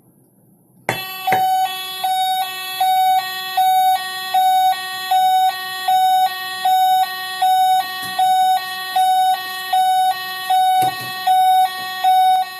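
Electronic two-tone ambulance siren, starting about a second in and alternating steadily between a low and a high tone, about one and a half high-low cycles a second.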